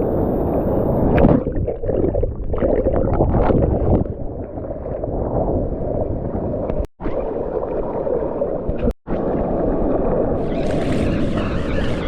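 Ocean water churning and gurgling, heard muffled through a GoPro in the surf, with two brief cut-outs in the sound. Near the end the sound opens up into brighter surf and wind noise.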